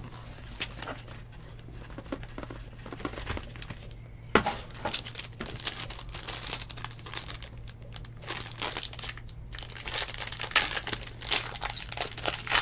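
Foil card-pack wrapper crinkling in the hands and being torn open: irregular crackles, with a sharp snap about four seconds in and a denser spell of crinkling near the end. A steady low hum runs underneath.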